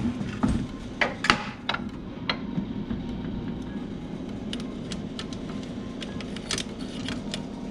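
A few light metal clicks and taps in the first couple of seconds as a steel straight edge and a caliper are handled against a transmission bell housing and throw-out bearing, then fainter scattered ticks, over a steady low hum.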